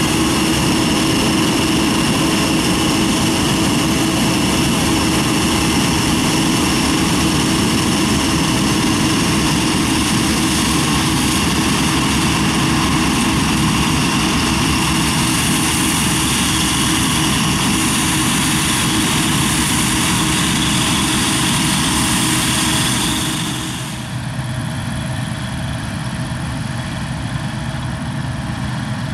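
Claas Dominator 88 SL combine harvester running under load while threshing rye: a steady diesel drone with held whining tones from the machine. About 24 seconds in, the sound drops and becomes quieter and duller.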